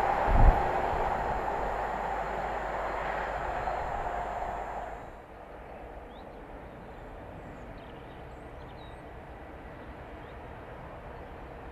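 Intermodal container freight train running away along the line, its wagons' rumble and rail noise fading, with a brief low thump about half a second in. About five seconds in the train sound cuts off suddenly to a quiet open-air background with faint bird chirps.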